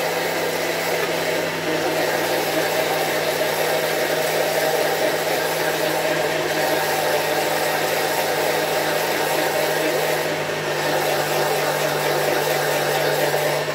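Countertop blender motor running steadily with an even hum, blending sugar syrup as powdered milk is added little by little.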